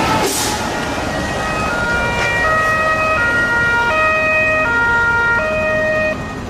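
Toy fire engine's electronic siren sounding a two-tone hi-lo pattern, switching pitch about every 0.7 s over a steady hiss, stopping near the end.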